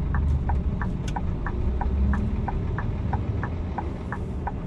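Inside a truck cab: the diesel engine runs low and steady while the turn-signal relay ticks evenly, about three clicks a second, as the truck turns in.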